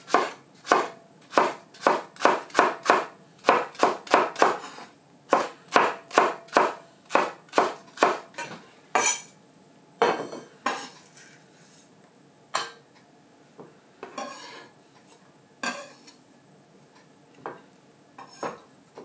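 Chef's knife slicing a spring onion on a wooden cutting board: a steady run of crisp cuts, about three a second, for roughly the first eight seconds, then only a few scattered knocks and scrapes on the board.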